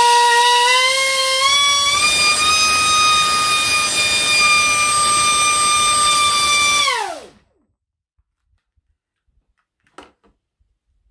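Leopard 2550 kV brushless motor spinning a 6x6-inch Graupner CAM Speed propeller on a 6S pack, run up to full throttle on a static bench test while drawing about 117 amps. It is a loud whine that steps up in pitch over the first two seconds, holds steady for about five seconds, then falls away as the throttle is cut and the prop spins down and stops. There is a faint click near the end.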